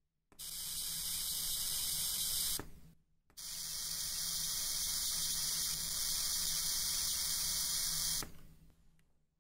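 High-voltage corona discharge hissing at the split-wire emitter of a homemade ion engine. It is driven by an arc lighter and a four-stage voltage multiplier at about 20 kilovolts. It is switched on twice, about two seconds and then about five seconds, with a short break between, and fades out near the end.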